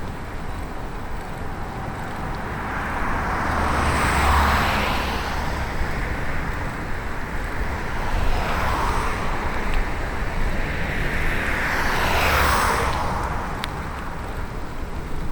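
Road traffic heard from a bicycle: three motor vehicles pass one after another, each swelling and fading, over a steady rush of wind and tyre noise.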